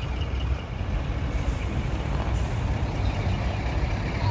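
Heavy diesel truck engines running steadily at low speed as trucks roll past slowly; a large Hino flatbed truck's engine is close by toward the end.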